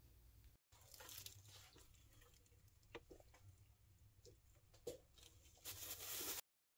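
Near silence with a few faint small clicks and taps as metal tweezers set seashells into wet resin in a plastic mold, and a brief faint rustle near the end.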